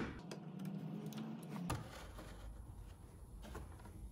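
Wood and plywood parts being handled and fitted together: a sharp click at the start, a few light knocks and a short sliding rub over the first two seconds, then faint ticks.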